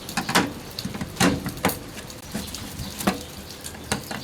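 Plastic cover of an air conditioner unit being fitted and pressed shut: a series of about six sharp clicks and knocks, irregularly spaced, over a steady background hiss.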